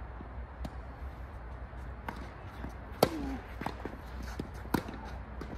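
Tennis ball struck by rackets during a rally: two sharp hits about a second and a half apart, the first the loudest, with fainter knocks in between.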